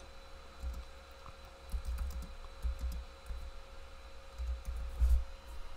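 Typing on a computer keyboard: irregular key clicks with soft thumps, coming in short runs of keystrokes.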